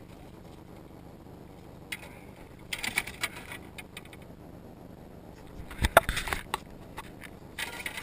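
Handling noises on a boat deck as a landed fish is unhooked: short scrapes and clatter of a metal tool, landing net and rod, with one heavy knock on the deck about six seconds in.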